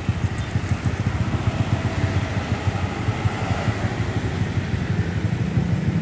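Tour bus and motorcycle engines running close by in slow traffic: a steady low, pulsing engine sound without horns.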